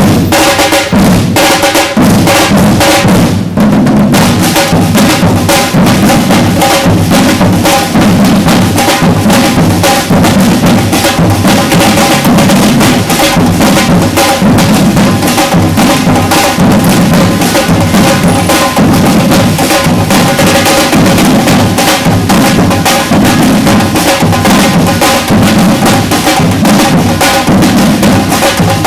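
Batucada percussion ensemble playing loudly together, deep bass drums under a dense, driving pattern of snares and other drums, with a short break about three and a half seconds in.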